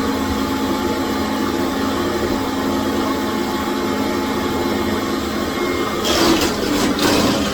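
Commercial vacuum cleaner running steadily on a tile floor, a constant motor hum under a loud hiss. About six seconds in, a rougher scraping noise joins as the nozzle works the floor.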